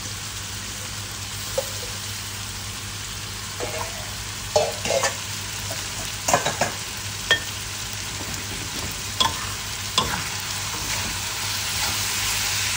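Glass noodles and pork belly sizzling in a wok, with a metal spatula scraping and knocking against the wok as they are tossed. The scrapes come in clusters through the middle.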